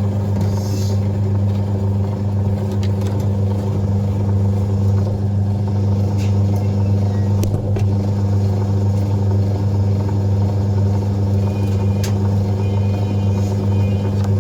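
Samsung top-load washing machine running in its spin cycle, the motor and drum giving a steady, even hum at speed, with a few faint ticks. The spin is working and holding its speed.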